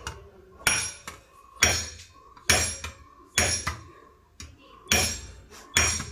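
Claw hammer striking the top of a pointed rod held on a tin can's lid, driving it through the lid of a tin whose pull ring has broken off. Six blows about a second apart, each with a short metallic ring, and a slightly longer pause after the fourth.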